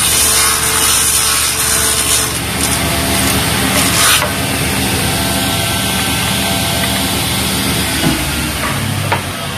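Table saw running while its blade trims the edge of a round MDF tabletop that is being turned on a pivot jig. The cutting noise is loudest for the first four seconds, then eases to the saw's steady hum with lighter contact on the edge.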